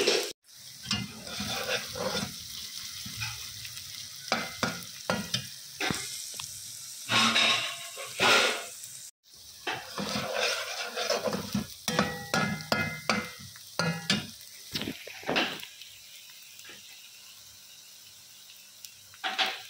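Chopped onions sizzling in hot oil in a metal karahi, partway through frying toward light golden, while a steel slotted spoon scrapes and clinks against the pan as they are stirred. The stirring stops near the end, leaving only the sizzle.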